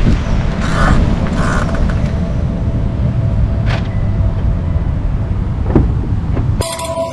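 Chevy Bolt EUV rolling, with a steady low road rumble and a few short creaks from the wheels, which the owner puts down to broken anti-click washers. Near the end the sound cuts abruptly to music.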